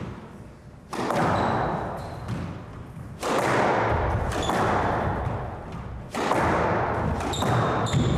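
Squash rally: the ball struck by rackets and smacking off the court walls, several sharp hits each ringing on in the hollow, echoing court. Short high squeaks come and go between the hits.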